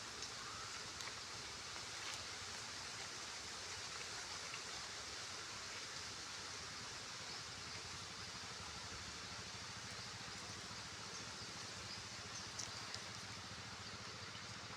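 Steady outdoor ambience at the fishing spot: an even hiss with no clear events, with a faint low hum coming in around the middle.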